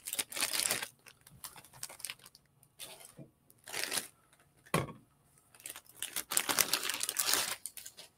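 Packaging crinkling and rustling in several bursts as a model kit part is unwrapped, with one sharp tap a little under five seconds in.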